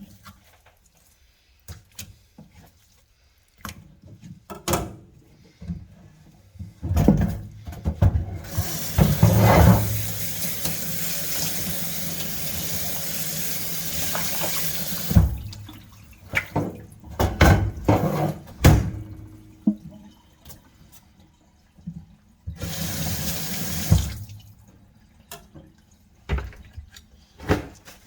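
Water tap running into a sink for about six seconds, then again briefly near the end, with scattered knocks and clatter of handling before, between and after.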